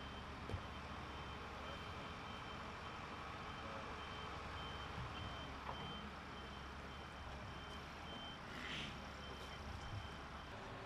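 Heavy machinery's reversing alarm beeping repeatedly, about two high beeps a second, over the low steady rumble of an engine running. There is a short hiss about three-quarters of the way through.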